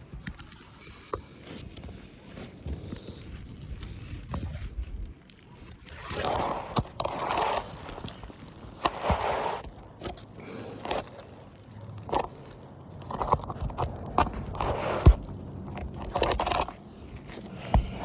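Bursts of scraping with scattered sharp clicks and knocks, from hands and tools working on roof shingles during a shingle repair attempt.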